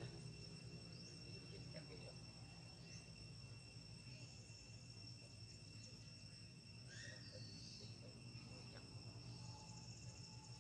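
Faint steady chorus of crickets, two even high-pitched drones, with a few brief faint chirps over it.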